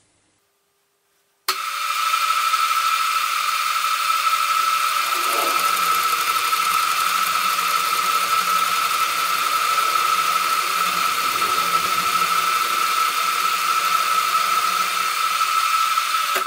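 Deckel FP1 milling machine in horizontal mode cutting with a gear cutter at a 2 mm depth of cut: a loud, steady cutting noise with a steady high whine. It starts suddenly about a second and a half in and stops suddenly at the very end. The machine takes the cut without strain.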